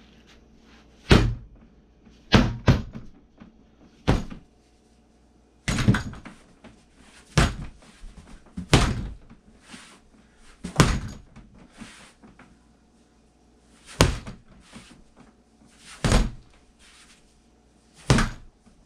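A bat striking a free-standing rubber torso training dummy, about eleven heavy thuds at uneven intervals of one to three seconds, with a pair of quick hits close together near the start.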